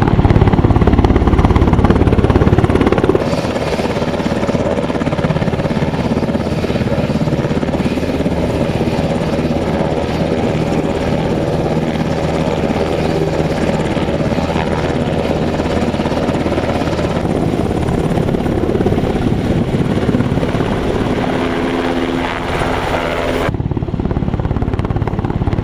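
UH-60 Black Hawk medevac helicopter running loud and steady: rotor and turbine noise as it hovers, sits with its rotors turning and flies away. The sound changes abruptly about three seconds in and again near the end.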